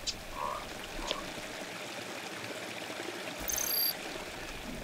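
Steady rain falling in conifer forest, water dripping from wet branches, with a few sharp drip clicks and two brief chirps in the first second or so.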